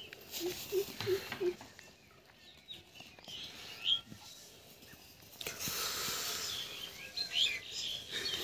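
Birds chirping, and dry straw rustling as a dog and a person move over straw heaps, with the rustling getting stronger a little past halfway. Four short low sounds come in quick succession about half a second in.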